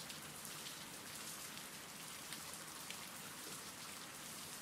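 Steady rain falling, faint, with a few slightly louder drops now and then.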